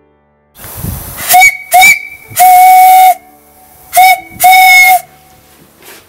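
Steam whistle on a homemade steam boiler, pulled by its cord: a rush of escaping steam hiss, then five loud steady-pitched blasts — two short, one long, one short and one longer.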